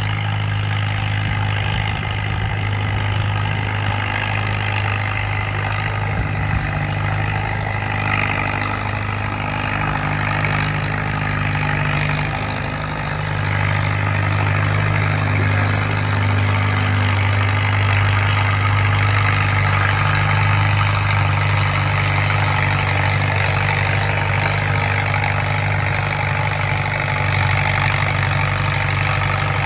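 Antique farm tractor engine running at a steady, unchanging pitch while it pulls a weight-transfer sled, getting louder about halfway through.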